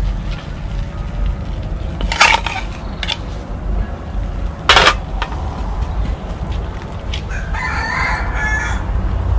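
A rooster crowing once, about a second long, near the end, over a steady low rumble. Two sharp knocks come earlier, about two and five seconds in.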